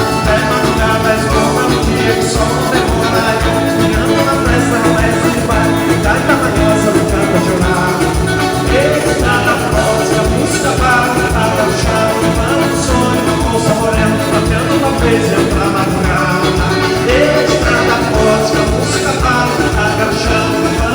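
Live band playing Latin-style dance music with a steady, regular beat.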